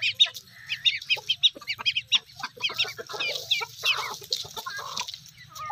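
Flock of young chicks peeping rapidly and continuously, with adult hens clucking among them, the clucking strongest about three to four and a half seconds in.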